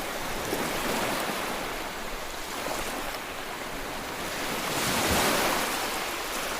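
Ocean waves washing in: steady surf, with one wave swelling to its loudest about five seconds in and then easing.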